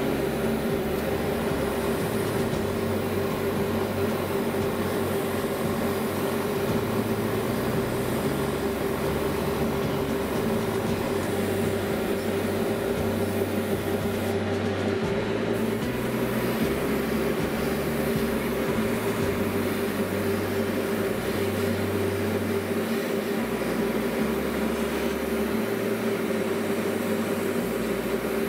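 Airbrush spraying metallic paint: an even hiss of compressed air from the airbrush over the steady hum of its compressor.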